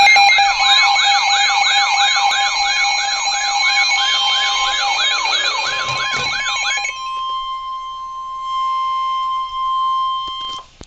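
Emergency alert tones: a siren-like warble sweeping up and down about three times a second, layered over steady alarm tones. About seven seconds in the warble stops and a single steady alert tone carries on, then cuts off abruptly just before the end.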